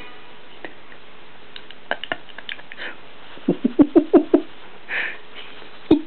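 Baby snuffling: a quick run of about six short huffing breaths near the middle, a hissy breath just after, and more short huffs near the end, among a few small clicks.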